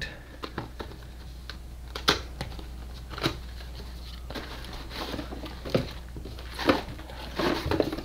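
Cardboard box and paper packaging being handled and opened: scattered rustles, scrapes and light taps, the sharpest about two seconds in and several more towards the end, over a steady low hum.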